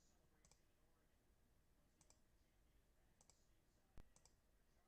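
Faint computer mouse clicks, a few double clicks spaced about a second apart with one sharper click about four seconds in: a randomizer button being clicked repeatedly.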